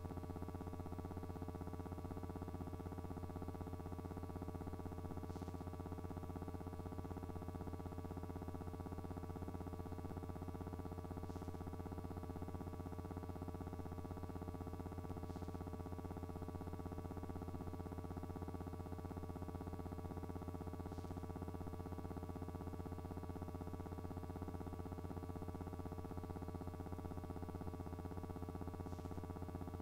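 Steady low electrical hum with fixed higher tones over it, unchanging throughout, with a few faint ticks every several seconds.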